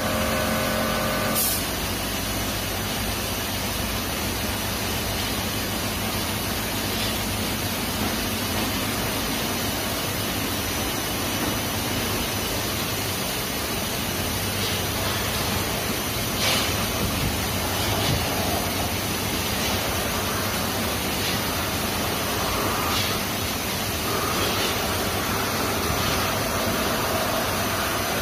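Automatic tunnel car wash running: a steady hiss of water spray jets over a low, steady machinery hum.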